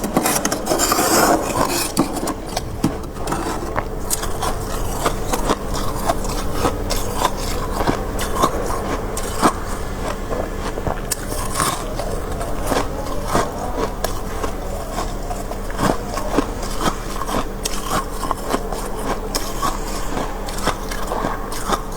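Close-miked freezer frost being scraped and crunched: a dense, continuous run of crisp crackles and sharp snaps, with a stretch of scraping about the first second. Under it runs a steady low hum.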